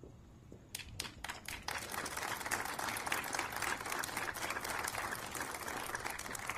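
Crowd applauding: a few scattered claps about a second in, quickly joined by many hands into steady clapping.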